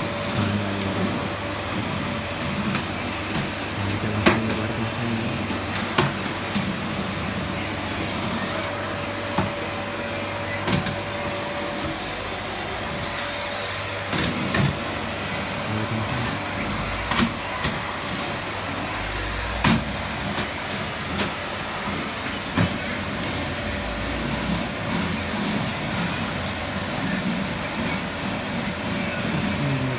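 Vacuum cleaner running steadily with a constant whine, with occasional sharp knocks and clicks as the nozzle bumps along.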